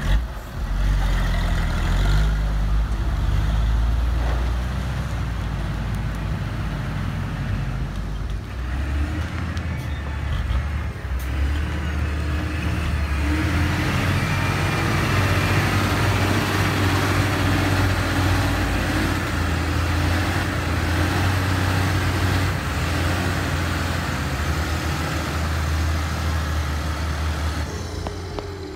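Heavy diesel engines running: first a dump truck's engine as it tips its load of dirt, then a LiuGong motor grader's engine as it drives and pushes earth, a steady low drone.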